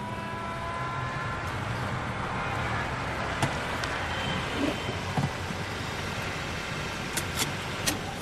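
A car drives up and pulls to a stop, its engine and tyres making a steady running noise. A few sharp clicks come near the end.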